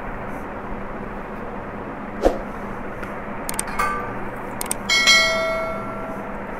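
Subscribe-button animation sound effect: a pop, a few mouse clicks, then a notification bell chime that rings and fades over about a second and a half. A steady hiss runs underneath.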